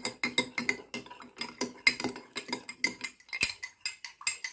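A spoon stirring salt into water in a glass tumbler, clinking rapidly and repeatedly against the glass; the clinks thin out a little near the end.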